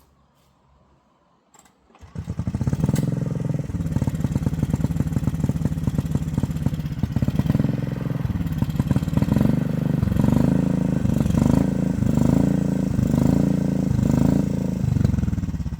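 Small gasoline engine of a gas-hydraulic locomotive starting up about two seconds in and running with a rapid, even firing beat. In the second half its speed surges up and down about once a second, and it fades near the end: an uneven, unhappy run that the crew puts down to running low on gas.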